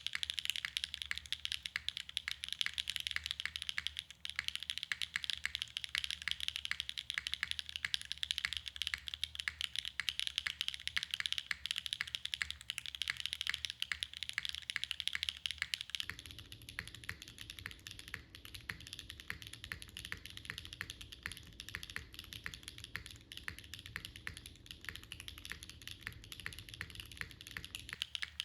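Fast, continuous typing on a Neo65 Cu custom mechanical keyboard: HMX Sugar Rush linear switches on a polypropylene plate in an isolated top mount, with GMK keycaps, each keystroke a crisp clack with a full body. About 16 seconds in, the recording switches from a dynamic mic to an iPhone mic, and the sound turns thinner in the highs and boomier low down.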